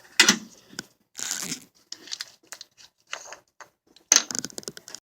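Irregular rustling, crackling and clicking of things being handled, loudest about a quarter second in and again about four seconds in.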